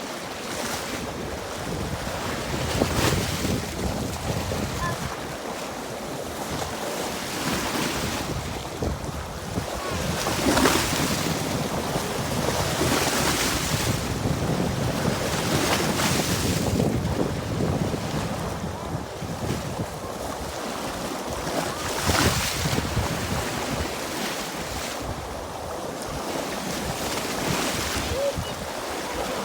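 Strong wind buffeting the microphone, with small waves lapping, rising and falling in gusts every few seconds.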